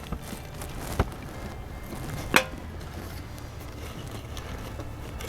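Two light knocks, about a second and a half apart, the second the louder, as paper and chopped wood are handled and loaded into a small wood-burning camp stove. Faint rustling runs between them.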